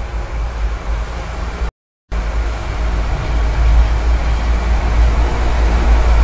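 Steady low rumble with a hiss of background noise. It cuts out completely for a moment about two seconds in, then returns and grows a little louder.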